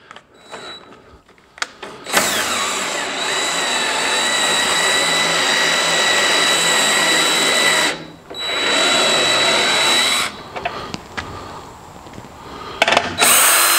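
Cordless drill winding a scissor jack down, running steadily for about six seconds, stopping briefly, running about two seconds more, then starting again near the end.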